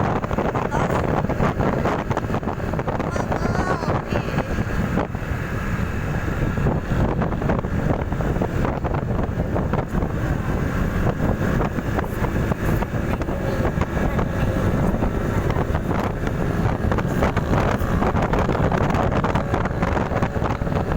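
Wind buffeting the microphone of a rider on a moving motorcycle: a steady, dense rush with a heavy low rumble and constant flutter.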